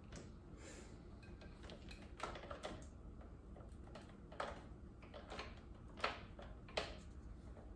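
Light, scattered clicks and taps of a coiled steel lock cable and U-lock being handled, about eight in all, roughly a second apart.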